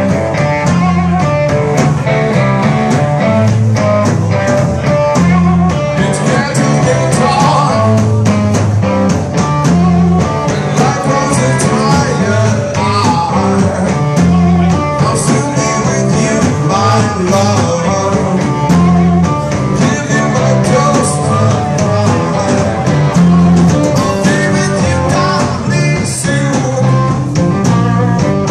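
Live band playing loudly, with electric guitars and a drum kit, and a singer singing into a microphone.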